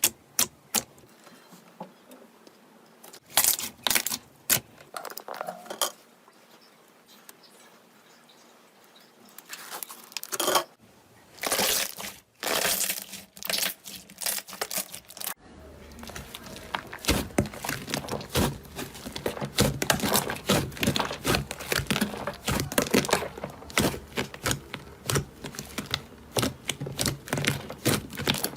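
Slime being handled: sticky popping clicks and crackles. These are sparse with quiet gaps at first, then turn dense and continuous after an abrupt change about halfway through.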